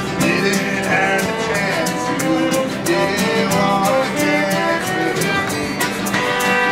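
A band playing a song live: pitched string-instrument melody over a steady strummed beat.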